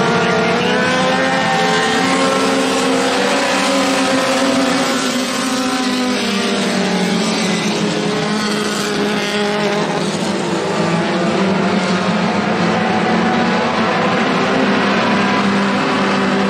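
A pack of Super 4 four-cylinder dirt-track race cars running around the oval together. Many engine notes overlap, rising and falling in pitch as the cars go by.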